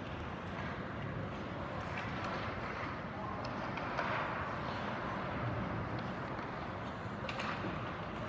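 Ice hockey play on the rink: skate blades scraping and swishing on the ice, with a few sharp clacks of sticks and puck scattered through it.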